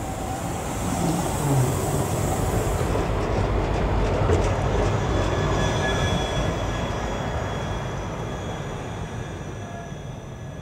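Tram running on its rails, getting louder over the first few seconds and then fading away, with a thin, high wheel squeal in the second half.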